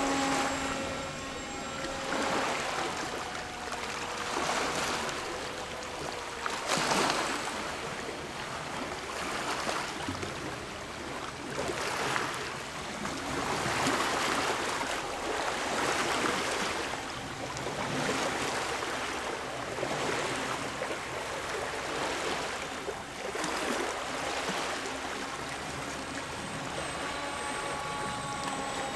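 Rushing noise of wind outdoors, swelling and easing about every two seconds. The electric-motor whine of an RC Icon A5 plane is faint in the first few seconds, fades out, and comes back near the end.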